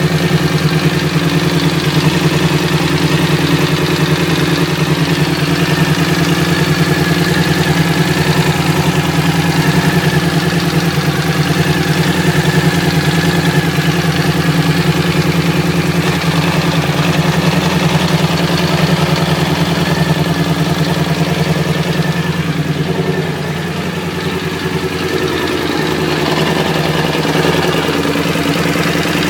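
Suzuki V-Strom motorcycle engine idling with the clutch pulled in, with a steady knock underneath the running. The owner takes the knock for worn crankshaft bearing shells. The sound drops and changes for a few seconds in the last third.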